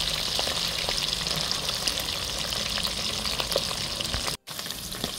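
Whole sprat fish deep-frying in hot oil, a steady sizzle with scattered small pops and crackles; the sound cuts out for an instant about four seconds in.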